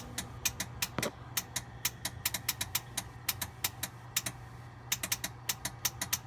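Warn winch solenoid (part 63070) clicking rapidly and irregularly, about four or five clicks a second with a brief pause past the middle, while the winch fails to pull the blade up. The owner takes it for a bad solenoid. A steady low engine idle hums underneath.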